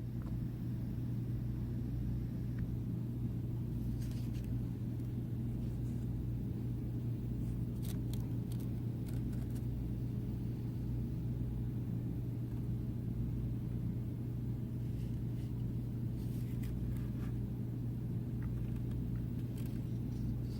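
Steady low electric motor hum, with a few faint light clicks and taps over it.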